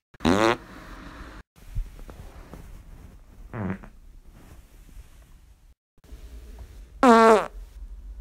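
Three human farts, each a short pitched blast that falls in pitch: a loud one right at the start, a quieter one about three and a half seconds in, and another loud one about seven seconds in.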